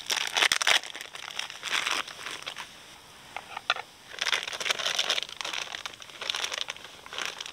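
Crinkling and rustling in several short bursts as sausage is handled and sliced with a knife over a pizza.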